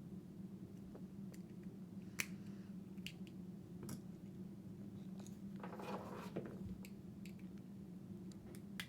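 Scattered small clicks and a brief scrape as a tool pries at the brass limiter ring of a Zippo butane torch insert, which is stuck and resisting, over a steady low hum.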